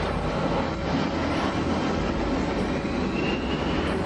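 Jet airliner's engines running loud and steady during a low pass, with a faint rising whine in the second half.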